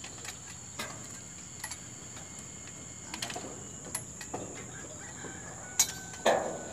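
Light metal clicks and taps from a lineman handling a spacer cart on transmission-line conductors, then from about six seconds in a run of loud, sharp metallic strikes about two a second, each ringing briefly. A steady high insect trill runs underneath.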